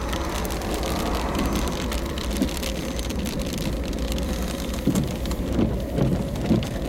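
Monsoon rain striking a surface in dense quick ticks over a steady low wind rumble, with a few louder low surges of wind near the end.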